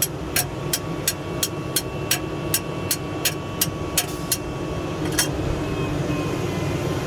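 A run of evenly spaced sharp clicks, about three a second, that stops a little past halfway, with one more click later, over a steady low mechanical hum.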